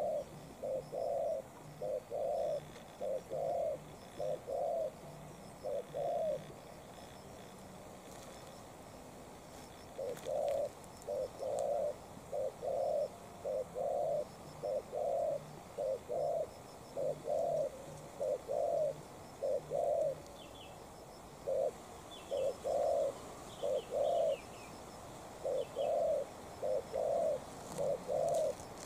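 Spotted dove cooing: phrase after phrase of low, even coos, with a pause of a few seconds about a quarter of the way in. Faint high chirps of a small bird come in during the second half.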